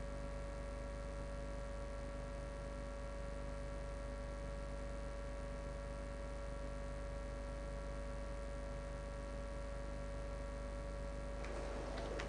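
Steady electrical mains hum with a buzz and no voices. About a second before the end, a rustling noise with a few sharp clicks comes in.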